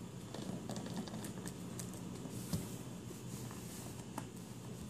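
Plastic shrink wrap being peeled and torn off a cardboard box, crinkling with scattered sharp crackles and one louder snap about halfway, over a steady low hum.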